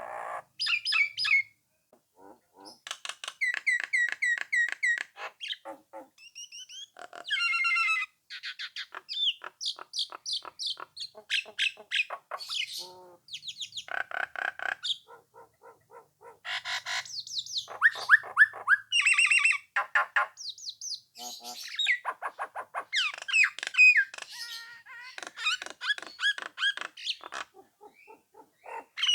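Nias hill myna singing at full voice: a rapid, varied string of loud whistles, clicking trills and harsh squawking notes with short pauses between phrases.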